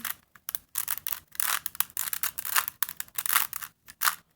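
A plastic 3x3 Rubik's Cube being turned quickly by hand: irregular runs of clicking and scraping as the layers rotate, in short bursts with brief gaps between them.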